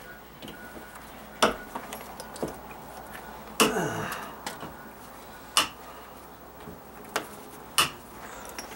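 Hand cutters snipping off staples left in wood sheathing: about five sharp snaps a second or two apart, the one a little past halfway with a short scraping tail.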